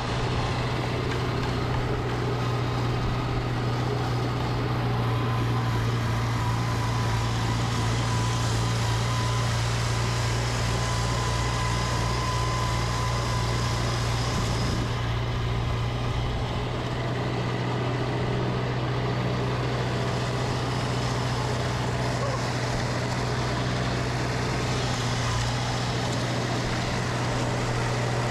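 Snowblower engine running steadily under load while clearing wet, heavy snow.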